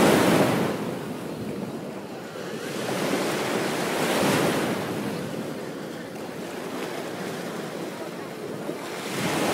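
Ocean waves breaking on a beach: a loud wash of surf at the start that fades, another wave swelling and breaking a few seconds later, and the next one building near the end.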